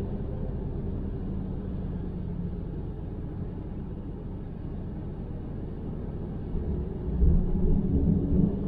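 Car driving on a road: a steady low rumble of tyre and engine noise, which gets louder and rougher about seven seconds in.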